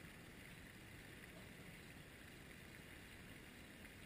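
Near silence: a faint, steady hiss of outdoor background noise with no distinct sounds.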